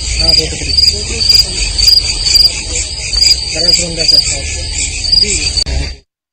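Crickets chirping in a steady, rhythmic chorus of high pulses. The sound cuts off abruptly about six seconds in.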